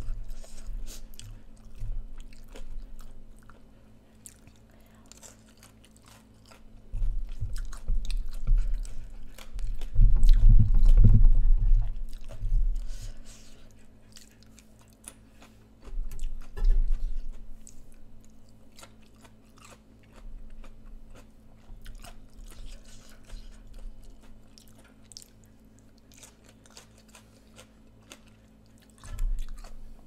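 Close-up crunchy chewing and biting of crispy grilled pork belly, in spells with quieter gaps, loudest from about ten to thirteen seconds in.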